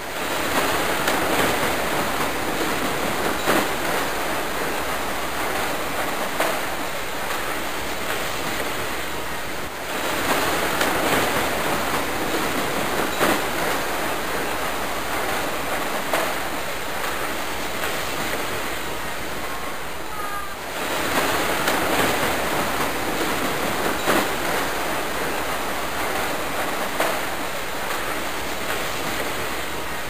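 A steady loud rushing hiss, with faint clicks and rattles of plastic steering column shrouds being pried apart and handled.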